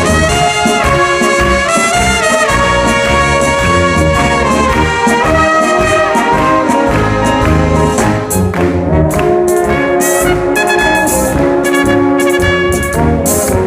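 Brass band playing a polka: trumpets and trombones carry the tune over a steady beat. Crisp percussion strokes join in about two-thirds of the way through.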